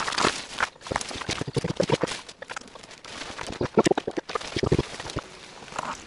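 Fern fronds rustling and brushing against the microphone as a hand pushes through dense bracken: an uneven run of swishes and crackles, thickest in the middle.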